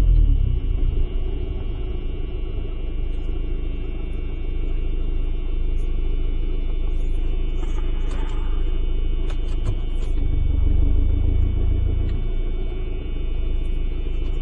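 Fiat Ducato van's engine running at low speed, heard inside the cab as a steady low rumble. It grows a little louder for about two seconds past the middle, with a few faint clicks.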